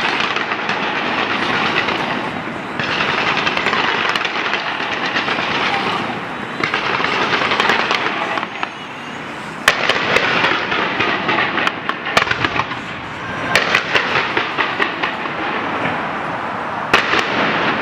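Fireworks going off in a dense, continuous crackle, with several sharper bangs breaking through near the middle and once near the end.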